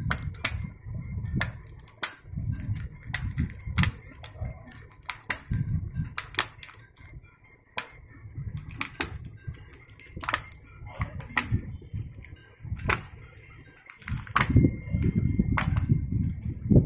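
Irregular sharp clicks and snaps as a screwdriver and fingers pry a Sony laptop keyboard's metal backing plate free of the small plastic fixing dots that hold it. Dull handling knocks run underneath and grow heavier near the end.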